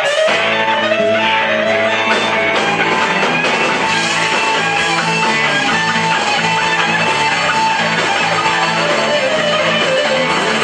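Live rock band playing, an electric guitar holding long melodic notes over a steady repeating bass line.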